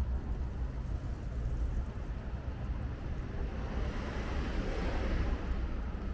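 A car passing on the street, its tyre and engine noise swelling from about halfway through, peaking near the end and fading, over a steady low rumble.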